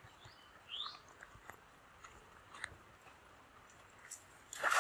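A cast net being thrown and splashing down onto a muddy stream near the end, the loudest sound here. Before it the scene is quiet apart from a few faint clicks and a short rising chirp about a second in.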